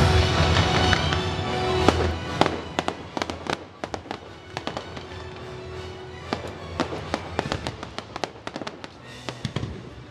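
Fireworks crackling: dozens of sharp pops and cracks coming thick and fast from about two seconds in. Loud show music with a heavy bass plays underneath, strongest at the start.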